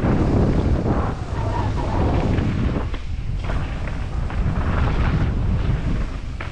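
Wind rushing over the microphone on a downhill mountain bike run, with tyres rolling over the dirt trail and brief knocks and rattles from the bike hitting bumps.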